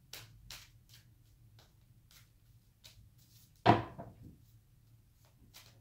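Tarot cards being handled on a table: a scatter of light clicks and taps, with one louder knock about two-thirds of the way through.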